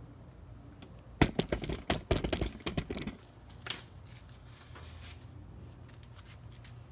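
A quick run of sharp clicks and rattles about a second in, lasting about two seconds, then a single click, over a low steady hum.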